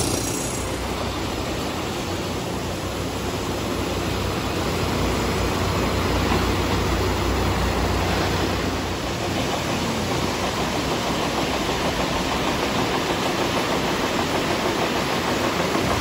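River rapids rushing over and between rocks: a steady, even rush of whitewater.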